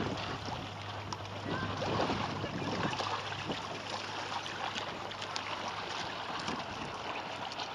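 Harbour water lapping and splashing against the hull of a small sailing kayak, with wind buffeting the microphone. A steady low hum runs underneath.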